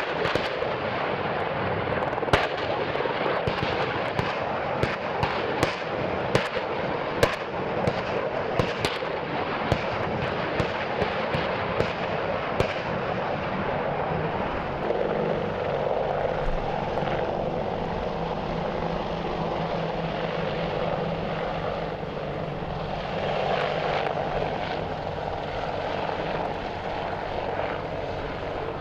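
Rotor and engine noise of AH-64 Apache attack helicopters in flight, with irregular sharp reports of live weapons fire, about one a second, through the first half. After that only the helicopter noise remains, swelling twice as one flies closer.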